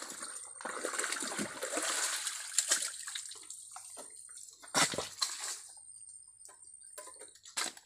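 Shallow muddy water and wet mud sloshing and splashing as mud is scooped by hand out of a ditch, with a few sharp knocks. The loudest knock comes about five seconds in.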